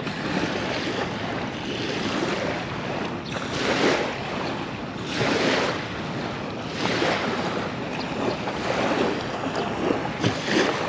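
Small waves lapping at a sandy river shore, swelling and fading every second or two, with wind rushing over the microphone.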